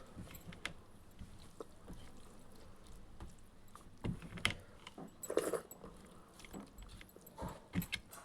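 Close-up eating sounds of egg and rice: scattered wet clicks and smacks of chewing, with a louder moist burst about five and a half seconds in.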